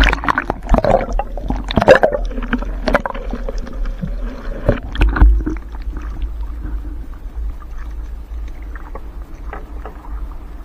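Trammel net being hauled by hand into a small boat: irregular knocks, clatters and water splashes against the hull, busiest in the first five seconds and sparser after, over a steady low rumble.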